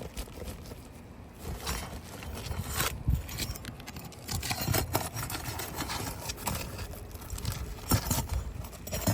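Scraping and prying at asphalt roof shingles, with scattered sharp clicks and knocks, as nails are pulled and the shingle seal strips are broken loose. A steady low rumble runs underneath.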